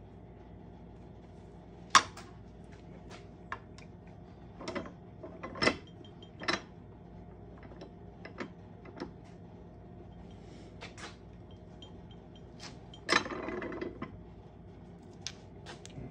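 Metal clicks and knocks from a hand-lever arbor press and steel ring-reducing die as a copper coin ring is pressed down into the die and worked in and out: a sharp clank about two seconds in, a few knocks around five to six seconds, and a longer rattling knock about thirteen seconds in.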